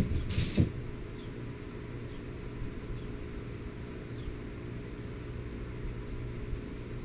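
A steady low hum, with a short rustle and soft thump in the first second. After that come a few faint light taps as a cat pads across a hardwood floor.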